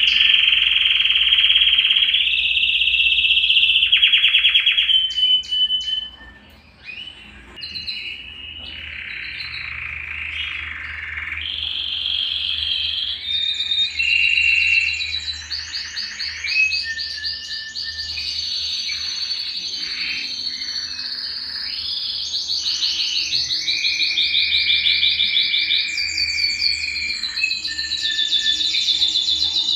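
A Belgian canary singing a long, continuous song of rapid trills and rolls mixed with short whistled notes. The song dips briefly about six seconds in, then carries on with fast, buzzy trills.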